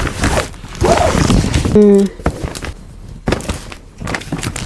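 Rustling and knocking of packaging being handled while unboxing a laptop, with a brief pitched vocal sound about two seconds in.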